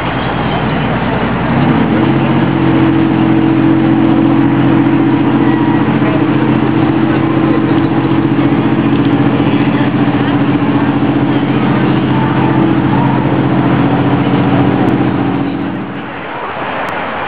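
Large engine running at a steady pitch, coming up about a second and a half in and dropping away shortly before the end, over a constant noisy rumble.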